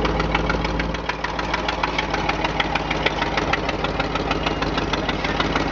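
1977 GMC dump truck's engine running at a steady idle with a rapid, even clatter; the low rumble eases slightly about a second in.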